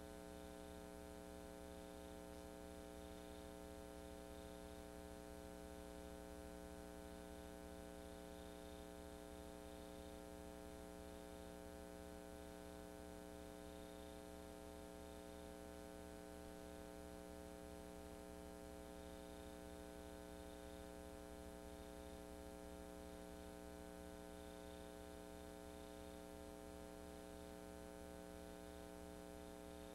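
Near silence: only a steady electrical hum with a faint buzz and hiss, unchanging throughout, with no sound of the parade itself.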